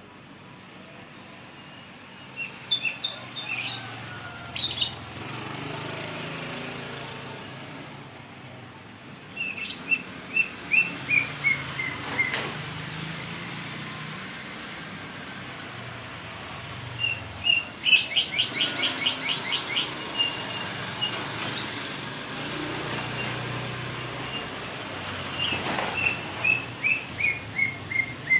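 White-rumped shama (murai batu) singing in separate phrases: a few short high notes, then a run of whistled notes stepping down in pitch, a fast rattling series of notes in the middle, and a second falling run near the end.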